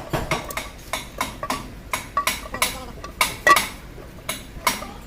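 Metal gearbox parts and tools clinking and knocking together as they are handled, a few irregular sharp clanks a second with one louder knock about three and a half seconds in.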